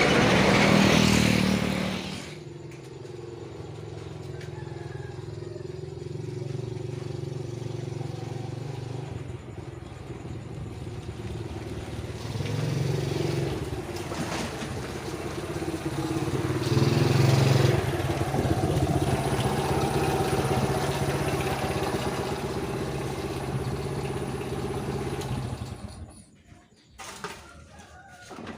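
A vehicle engine running steadily, swelling a couple of times, then cutting out about two seconds before the end.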